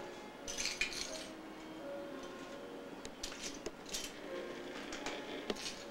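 Small toy pieces clicking and clattering against each other as they are handled, in scattered short runs.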